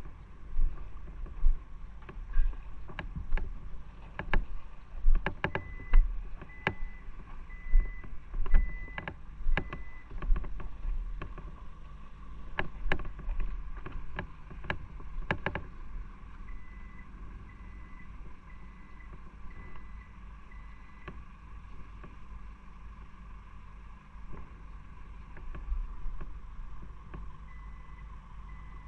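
Footsteps of a person walking on pavement, a step about every 0.7 seconds, fading out about halfway through, over a steady low background rumble. A short high beep repeats about every two-thirds of a second, coming and going in three spells.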